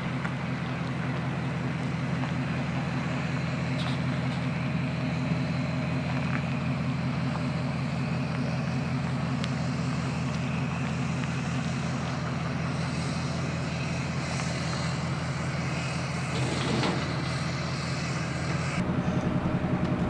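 A pickup truck's engine idling steadily, growing louder with a heavier beat near the end.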